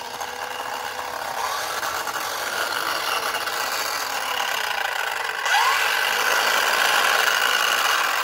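Small battery-powered electric motor in a 1978 toy stunt-track car launcher running steadily. It gets louder about five and a half seconds in, with a short squeak.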